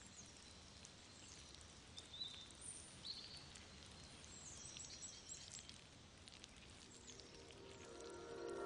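Quiet outdoor ambience with a few faint, high bird chirps. Soft music fades in near the end.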